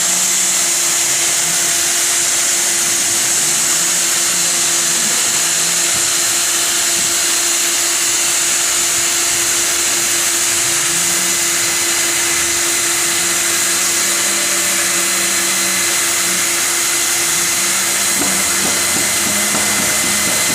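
Automatic profile welding machine running steadily, a loud even hiss over a steady low hum.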